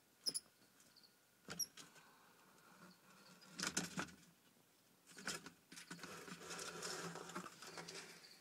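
Faint sounds of a peach-throated monitor lizard and a mouse in a reptile enclosure: a couple of short high squeaks with clicks in the first two seconds, then scratchy rustling in two bouts, the longer one from about five seconds in.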